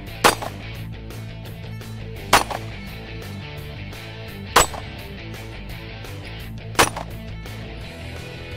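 Four handgun shots fired at a slow, even pace, about two seconds apart, each followed a moment later by a fainter second report.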